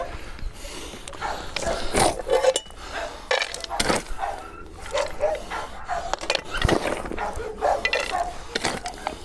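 A metal bowl scooping a wet mash of dog food from a plastic tub and clinking against metal and ceramic feed bowls as the food is portioned out, several sharp clinks and knocks. Dogs vocalise now and then in the background.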